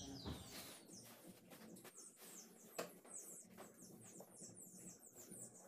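Faint high-pitched chirps, short and falling in pitch, repeating several times a second, with a few soft clicks and rustles of felt and thread being handled.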